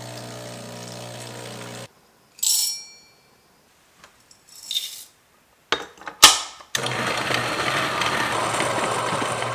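Breville Barista Express pump humming steadily for about two seconds as hot water runs to warm the cup, then stopping. A ringing clink follows, then a few clicks and a loud knock. From about two-thirds of the way in, the Niche Zero coffee grinder runs steadily, grinding beans.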